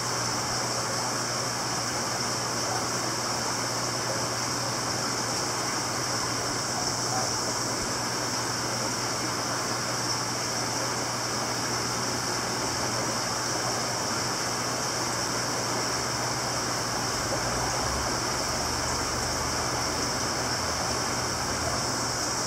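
Steady rushing hiss of aquarium water circulation and pumps, with a low steady hum underneath.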